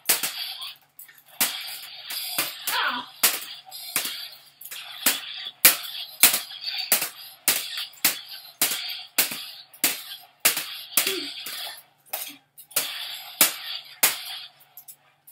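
Two light-up toy lightsabers clashing over and over, with sharp plastic knocks more than once a second, between which the toys' small speakers play electronic hum and swing sound effects.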